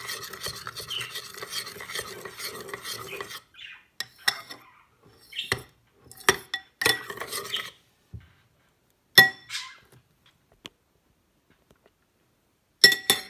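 Metal spoon stirring thick slime glue mixed with red acrylic paint in a plastic bowl: steady scraping for about three seconds, then scattered clinks and scrapes of the spoon against the bowl, the loudest about nine seconds in and a short cluster near the end.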